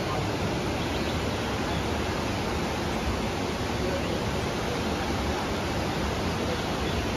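Steady rushing noise of a fast-flowing river, with no breaks or separate events.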